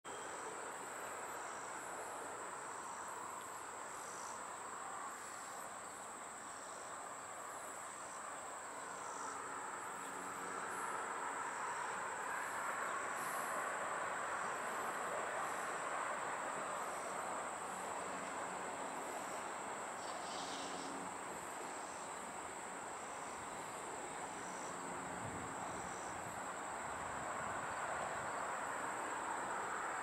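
Steady high drone of insects with repeated chirps, over the rumble of a Loram ballast-washing machine coming along the rails. The rumble swells about ten seconds in and again near the end.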